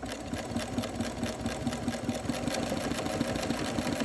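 Janome Memory Craft 6600P computerized sewing machine running steadily at speed, its needle stitching up and down with no fabric under the presser foot. It runs smoothly.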